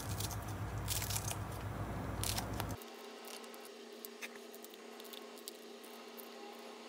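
Kitchen handling noises: a few sharp clicks over a steady low hum, which cuts off abruptly about three seconds in, leaving a quieter steady hum with faint ticks.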